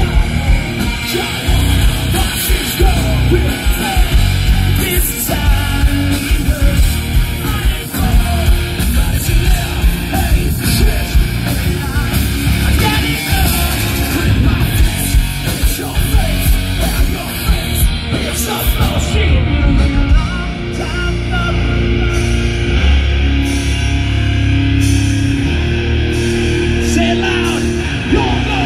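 A rock band playing live through a festival PA, heard from the crowd: distorted electric guitars, bass, drums and vocals. About twenty seconds in, the drum hits thin out and held low chords ring on.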